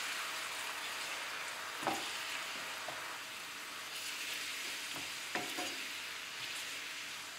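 Onion, garlic and anchovies sizzling gently in plenty of olive oil over a low flame, wilting rather than frying, while a wooden spoon stirs them and knocks lightly against the pan a few times.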